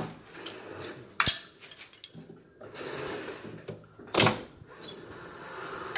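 Sharp metallic clanks of a tool on steel rebar ties sticking out of a concrete column: one right at the start, one about a second in with a brief metallic ring, and another about four seconds in, with softer scraping between.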